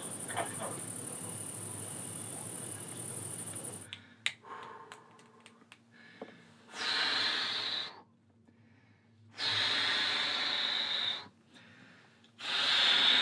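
Crickets chirring steadily at first. After a few small clicks come three long, heavy, wheezy breaths with short silences between them: the labored breathing of an elderly man with bad lungs.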